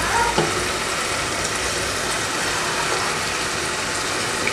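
Onions, capsicum and tomatoes sizzling steadily as they fry in an aluminium pot on a gas stove.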